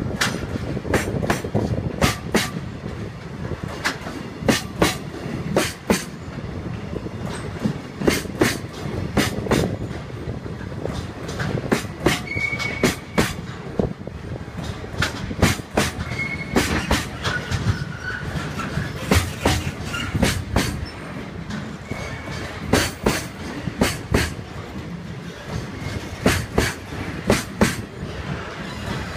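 Container freight wagons rolling past on steel wheels, with a steady rumble and quick, irregular clickety-clack as the wheelsets cross rail joints. A few brief high wheel squeals come through.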